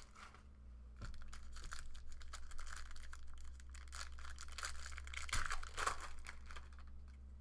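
Foil wrapper of a Panini Elite basketball card pack being torn open and crinkled by hand: a run of crackling tears and rustles for several seconds, over a low steady hum.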